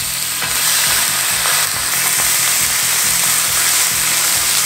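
Pork belly slices frying with a steady, loud sizzle.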